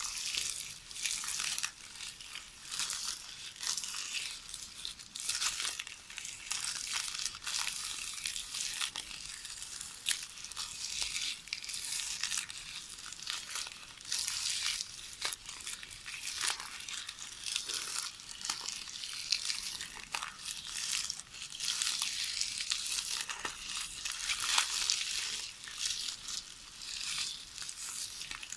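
Magnetic tape from a VHS cassette rustling and crackling as it is worked by hand in knitting: a steady, irregular run of crinkles with a few sharper clicks.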